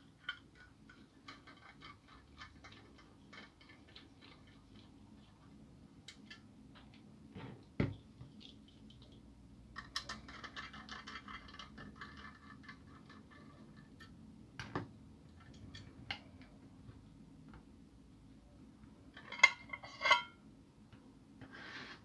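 Precision screwdriver turning tiny screws out of the aluminium end cap of a Transcend StoreJet 25S3 drive enclosure: faint metallic ticking and scraping in runs, a few light knocks, and two sharp metallic clinks near the end.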